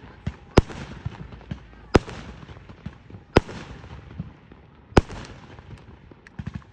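Fireworks going off: four loud bangs about a second and a half apart, each trailing off over about a second, with smaller pops in between and a quick run of pops near the end.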